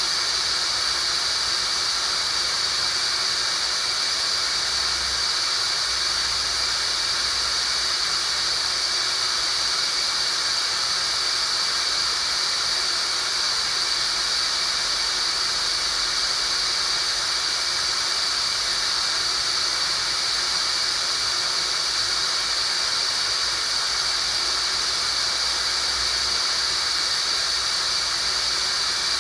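Steady synthetic high-pitched hiss, strongest in one narrow high band with fainter bands above and below it: a tinnitus-relief sound-therapy noise signal.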